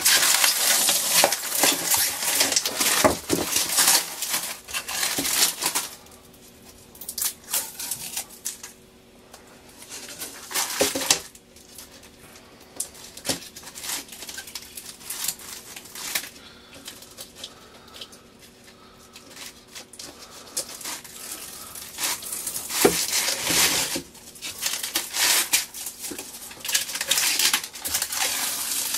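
Protective film being peeled off CNC-cut plexiglass parts and crumpled, crinkling and tearing in spells. The middle is quieter, with a few light knocks.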